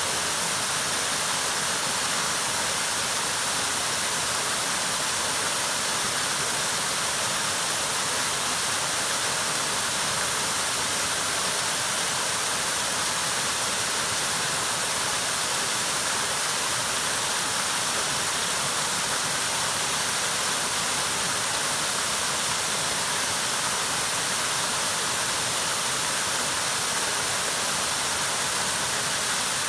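Small waterfall cascading over rock ledges into a shallow pool: a steady, even rush of falling water.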